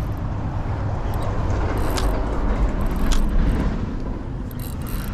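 A car passing on a nearby road, with engine and tyre noise swelling to its loudest about three seconds in, then fading.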